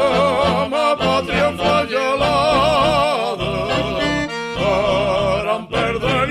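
A havanera song: voices singing with a wide vibrato over a rhythmic instrumental accompaniment.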